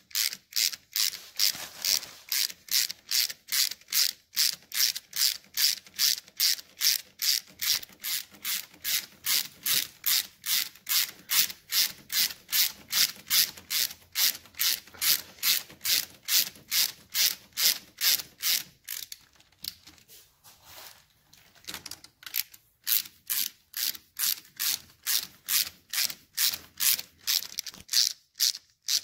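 Ratchet wrench clicking steadily, about three clicks a second, as nuts are run down onto the alternator stator studs. The clicking stops for a few seconds about two-thirds of the way through, then starts again.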